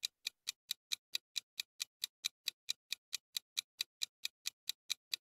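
Countdown-timer sound effect: a steady clock-like ticking at about four and a half ticks a second, with nothing else under it.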